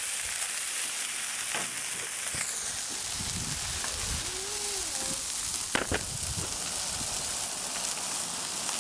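Raw smash burger patties sizzling on a hot steel flat-top griddle, a steady frying hiss. A few light clicks come through it.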